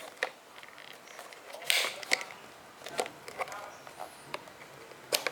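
Hands handling a camera's packaging: scattered sharp clicks and short rustles of plastic and cardboard, with a longer rustle a little under two seconds in.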